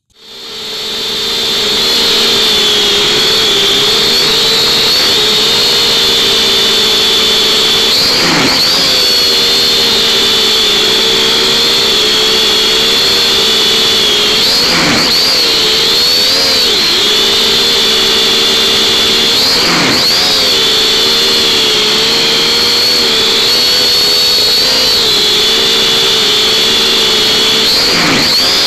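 Small quadcopter drone's electric motors and propellers whining steadily, heard close up through its onboard camera's microphone. The whine fades in over the first couple of seconds. The pitch dips and swings back up four times as the drone manoeuvres, the last time as it flips upside down near the end.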